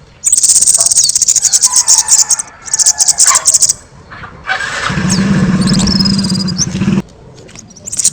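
Kemade bird singing in loud, rapid high-pitched trills in two bursts. About halfway through, a louder, lower pulsing buzz comes in for about two seconds and then stops abruptly.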